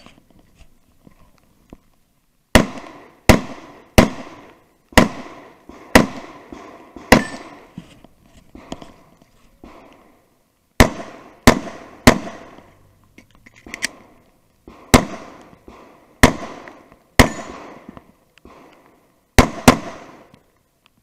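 Glock 19 9mm pistol firing in rapid strings: about fourteen loud, sharp shots in groups of two to six, with pauses of two to four seconds between groups, each shot trailing a short echo.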